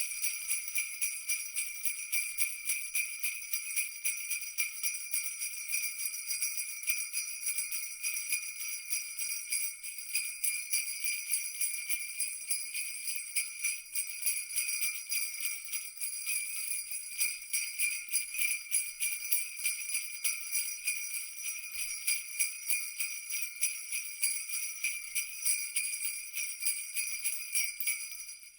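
Sleigh bells (jingle bells) shaken continuously, a bright metallic jingling that pulses in an even rhythm.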